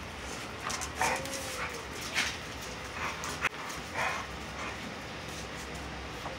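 Bully puppies yipping while they play-fight with an adult dog: short, high cries every second or so, with a brief whine just after the first one.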